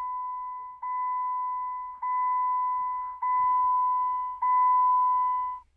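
A Jeep's dashboard warning chime: one steady, high beep sounded five times in a row, each tone lasting a little over a second and fading slightly before the next begins.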